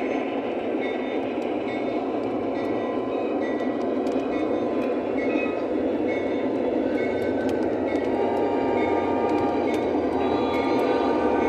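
O-gauge model passenger cars rolling past on the layout track, making a steady rolling rumble of wheels on rail that grows a little louder near the end.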